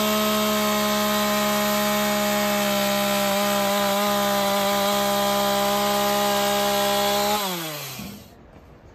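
Stihl two-stroke chainsaw held at full throttle, cutting through a wooden stump with a steady high engine note. About seven seconds in the throttle is let off and the engine note falls away.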